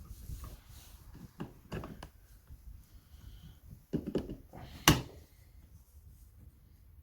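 Scattered clicks and knocks of a part being fitted by hand into a Stihl 028 AV chainsaw. A cluster of knocks comes about four seconds in, followed by one sharper knock, the loudest.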